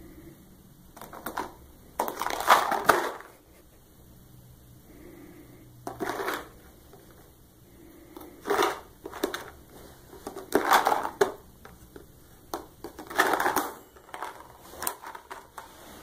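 A rabbit nosing and shoving a clear plastic tub of dried cranberries around on a rug: repeated bursts of plastic scraping and crinkling, each about a second long, with short pauses between.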